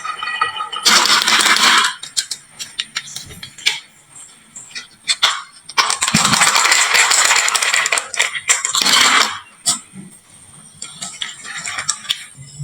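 Marbles rolling and clattering down a wooden marble-run slope and dropping into toy trucks. Two long runs of dense rattling, about a second in and again from about six to nine seconds, with scattered sharp clicks of single marbles between them.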